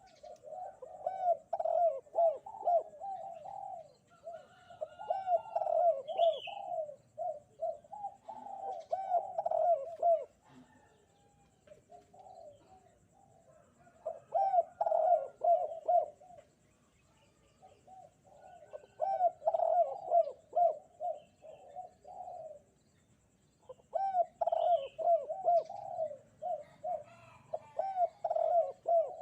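A Sunda collared dove (derkuku) cooing in about five bouts of quick, repeated coos, each bout a few seconds long with short pauses between them. Small birds chirp faintly in the background.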